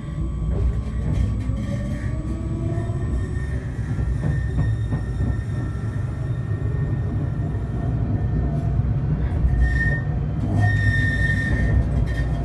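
Inside a street-running tram in motion: a steady low rumble, with a motor whine rising in pitch over the first few seconds as it picks up speed. About ten seconds in the wheels squeal high on the rails, briefly and then again for about a second.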